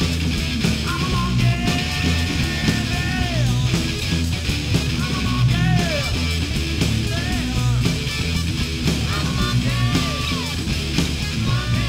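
Live rock band playing loud: electric guitar through Marshall amplifiers and a drum kit, with a man singing into the microphone from about a second in.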